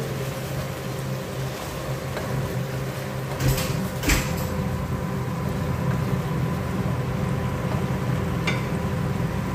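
Wooden spatula stirring chicken and vegetables in a pot, with two sharp knocks against the pot about three and a half and four seconds in, over a steady low hum.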